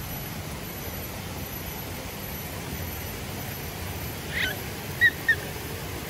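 Steady rushing of water in the background. About four seconds in there is a brief high call, then two short, sharp, loud chirps about a third of a second apart.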